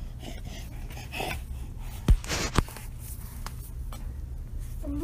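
Room tone with a steady low hum. About two seconds in come two sharp knocks half a second apart, with a short rustle between them.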